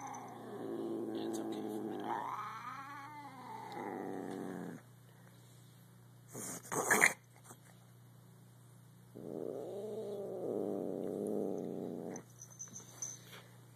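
A cat yowling in long, drawn-out calls: two running into each other in the first five seconds, then another from about nine to twelve seconds in. Between them, around seven seconds in, comes a brief sharp noise, the loudest moment here.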